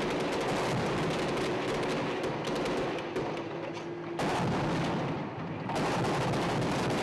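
Sustained gunfire in a firefight, many shots overlapping in a continuous clatter. It thins out about three seconds in, then comes back loud and dense just after four seconds in.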